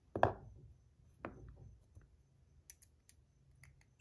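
Titanium fidget spinner with thick buttons being handled: two sharp metallic clicks about a second apart, followed by a few light ticks.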